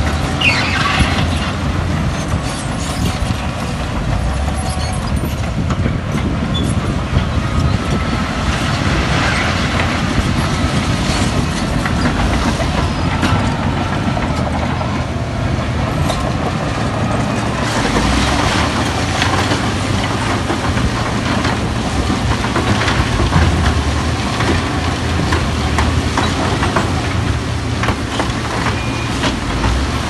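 Crawler bulldozer's diesel engine running steadily under load, with frequent clanks and knocks of its steel tracks and gear.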